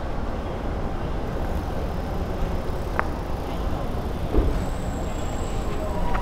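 Street ambience dominated by road traffic: a steady low rumble of vehicles passing, with a single sharp click about three seconds in and a faint high whine for about a second near the end.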